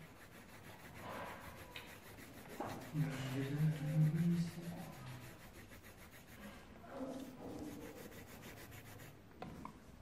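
Pencil shading on paper: the lead rubbing back and forth in short strokes across the sheet. A man's low voice is briefly heard around the middle.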